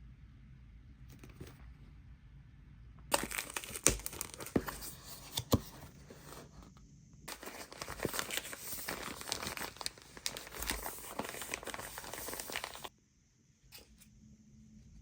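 Product packaging being crinkled and torn open by hand, in two long stretches of rustling with sharp clicks and snaps; the second stretch cuts off suddenly near the end.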